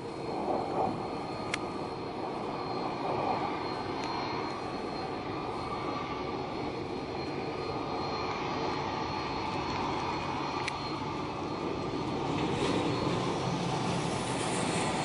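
Steady jet aircraft noise: a continuous rush with a faint, steady high-pitched whine, growing a little louder near the end.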